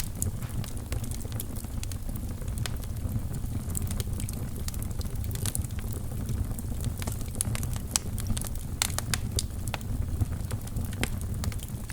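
Fire burning in a fireplace: a steady low rumble of flames with frequent sharp crackles and pops, a few louder snaps in the second half.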